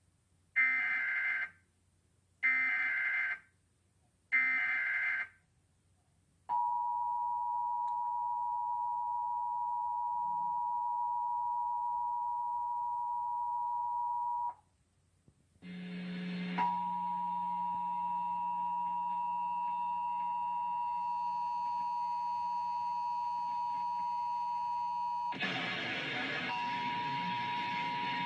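Emergency Alert System test signal: three short bursts of SAME header data tones about two seconds apart, then the EAS two-tone attention signal, a steady dual tone, for about eight seconds. After a brief break the attention tone starts again with a low buzz under it, and near the end noisy programme audio rises over it.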